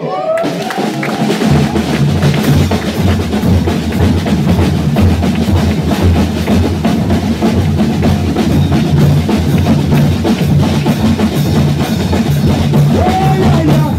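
Folia de Reis band playing an instrumental interlude: several snare drums and a bass drum beating out the rhythm with an accordion. The band starts at once and the bass drum comes in strongly about a second and a half in.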